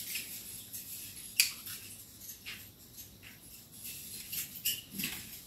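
Light metallic clicks and ticks of steel reinforcing bars and tie wire being worked by hand, with one sharper click about a second and a half in.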